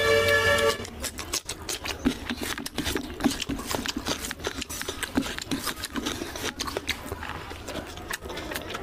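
A held, horn-like chord that cuts off under a second in. Then close-up eating sounds: chewing and a hand squishing and mixing rice into oily mutton curry, a steady run of small wet clicks and smacks.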